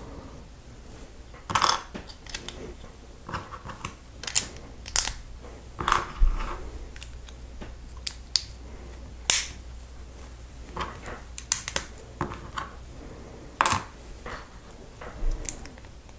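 Small plastic LEGO bricks and plates being pressed together and handled by hand: irregular sharp clicks and snaps.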